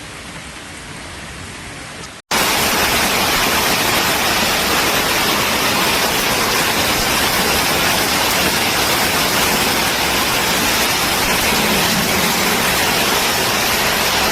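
Heavy downpour in a storm: fainter rain at first, then, after a cut about two seconds in, a loud, dense, steady hiss.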